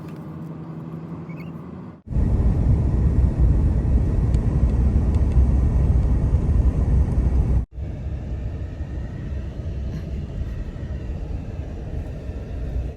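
Steady low rumble of a car driving on the road, in three abrupt cuts: a quieter hum for about two seconds, a much louder rumble until past the middle, then a moderate rumble again.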